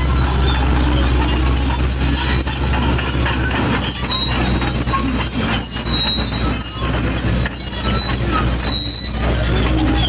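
Loaded dump truck's diesel engine running steadily as it drives down a dirt slope, with repeated high-pitched squeals from its brakes throughout.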